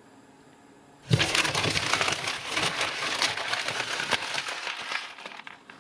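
Plastic packaging being crinkled and crushed by hand: a dense, irregular crackling that starts suddenly about a second in and fades near the end.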